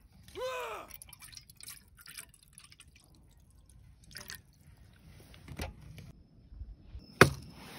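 Milky ginseng makgeolli poured from a plastic bottle into a cup, the stream splashing and trickling as the cup fills. A short pitched call that rises and falls comes about half a second in, and a sharp knock comes near the end.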